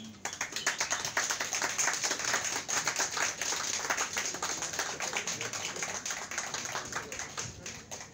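Audience applauding, many hands clapping together, starting just after the start and dying down near the end.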